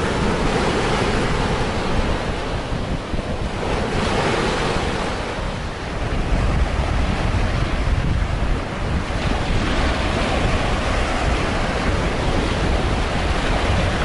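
Black Sea surf breaking and washing up a sandy shore in a steady hiss that rises and falls every few seconds as the waves come in. Wind buffets the microphone with a low rumble, stronger in the second half.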